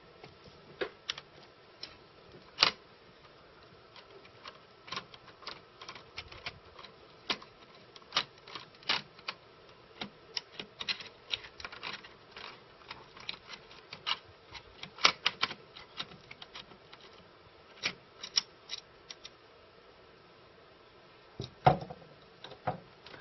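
Irregular small clicks and taps of a screwdriver and small metal parts as a screwed-in bearing bar is unscrewed and taken off the back of a Teac X-300R reel-to-reel tape deck, with a few louder knocks among them.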